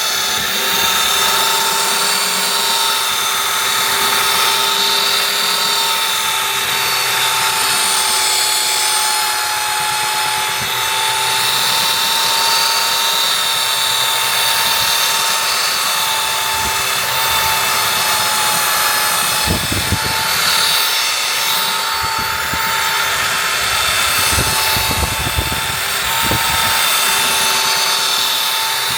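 Electric power sander running steadily on an old weathered tabletop: an even motor whine over a sanding hiss, with a few low knocks about two-thirds of the way through.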